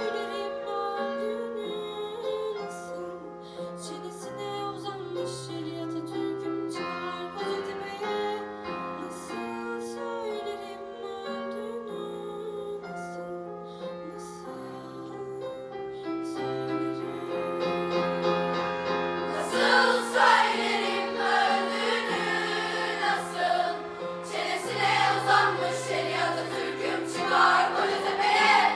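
Mixed middle-school choir singing a slow song with piano and violin accompaniment, the sound growing louder and fuller about two-thirds of the way in.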